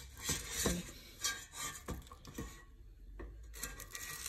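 Metal kitchen tongs clinking and scraping against an air fryer basket as pieces of chicken are turned over: a scatter of small knocks and scrapes.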